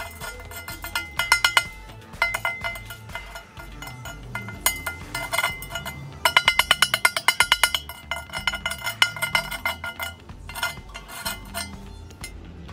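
Chipping hammer rapping on a steel weld bead, knocking off welding slag in quick bursts of sharp strikes, about eight a second, each with a short metallic ring.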